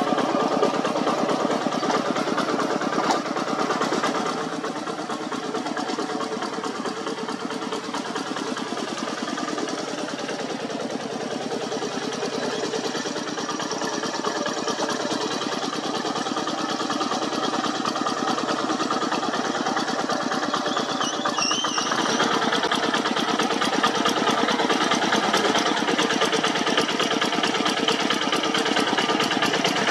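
Single-cylinder diesel engine of a two-wheel walking tractor running steadily while ploughing. It drops somewhat in level about four seconds in and rises again past the twenty-second mark.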